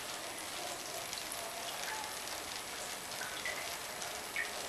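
Water from a homemade Kelvin water dropper streaming and dripping into its collecting cans: a steady patter with a few separate drip plinks.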